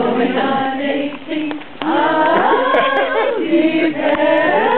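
Choir of mixed voices singing, a woman's voice among them, with a brief lull about a second and a half in before the singing swells again.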